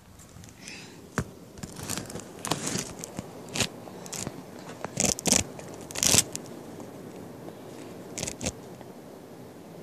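Handling noise as the camera is pushed into place on the ground against a rough wall: an irregular run of scrapes, crackles and knocks for about six seconds, one more pair about eight seconds in. Then a faint steady hiss.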